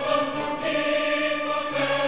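Background music: a choir singing sustained chords.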